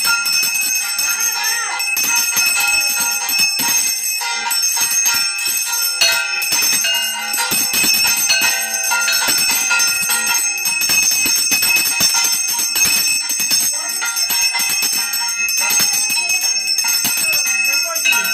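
Puja hand bell rung rapidly and continuously, a dense, steady high ringing.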